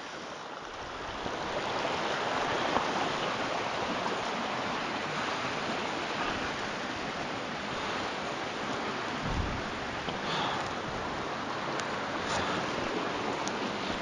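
Steady rush of running water from a forest stream, swelling a little over the first two seconds and then holding even.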